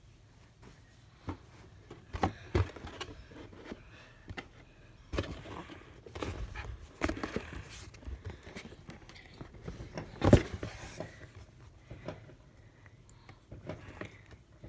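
Sneakers and their cardboard box being handled: scattered rustles, scrapes and light knocks, with one sharp knock about ten seconds in.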